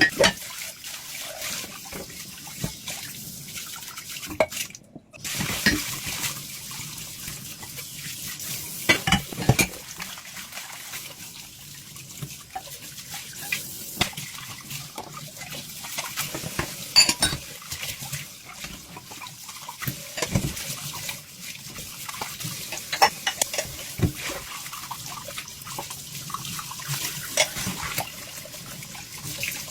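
Dishes being washed in a sink: water running steadily with frequent clinks and knocks of dishes against each other and the sink, and a brief break about five seconds in.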